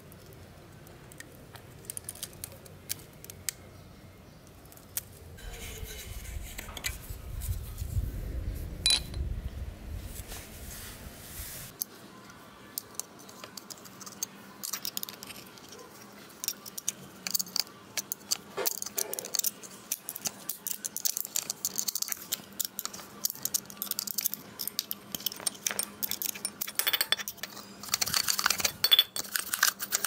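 Metal clinks, ticks and scraping as an old table fan motor's metal end housing is handled and scraped out with a screwdriver. Near the end a stiff brush scrubs the housing, with a louder, denser scratching.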